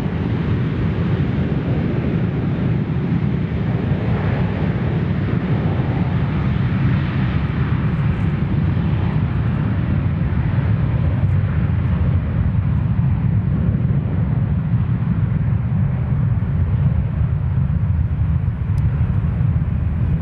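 Jet engines of a jetBlue Airbus airliner running at taxi power: a steady low rumble with a soft hiss above it, swelling a little about four seconds in.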